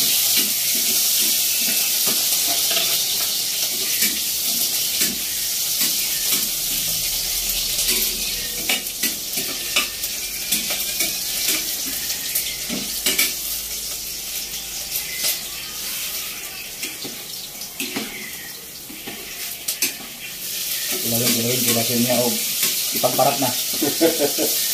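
Steady hissing of a pot of chicken broth boiling hard on a gas stove. A metal ladle scoops and pours the broth, clicking and clinking against the pot again and again.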